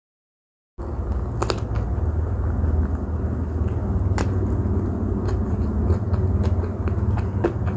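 Close-miked eating: a bite into a Vietnamese fresh spring roll about four seconds in, with scattered wet mouth clicks of chewing, over a steady low rumble. The sound cuts in suddenly just under a second in, after dead silence.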